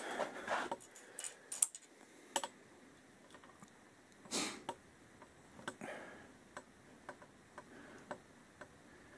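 Faint, scattered light clicks and handling noises around a motorcycle's handlebar controls and ignition switch, with a short louder scuff about four seconds in.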